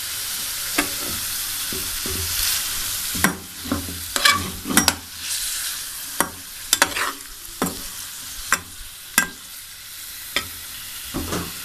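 Marinated chicken pieces sizzling as they fry in hot oil in a metal pan, stirred with a spoon that scrapes and clinks against the pan again and again.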